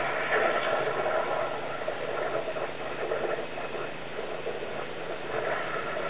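Sewer jetter running steadily, its engine and high-pressure pump working while the jetter hose is fed into a clogged sewer line.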